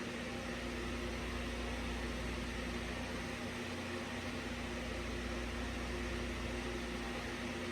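Steady background hiss with a faint, steady low hum.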